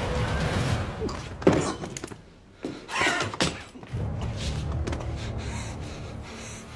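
Background music broken about a second and a half in by a single loud slam, then a short lull and a second, noisier sound around three seconds in before the music resumes.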